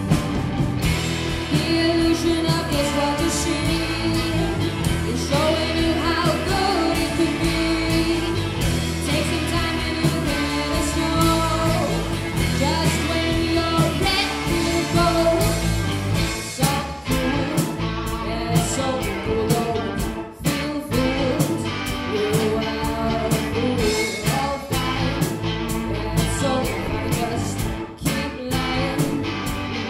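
Live blues-rooted band music: a woman singing over electric guitar, bass, piano or organ and drums.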